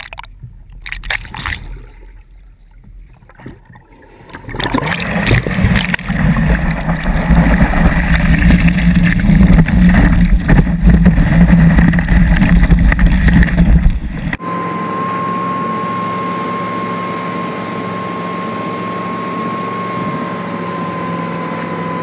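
Light splashing of lake water close to a camera at the water's surface. From about four seconds in comes a loud rushing of water and wind as the wakeboarder is pulled up and rides behind the boat. About two-thirds of the way through, the sound cuts abruptly to the steady drone of the tow boat's engine running at speed, with a thin steady whine over it.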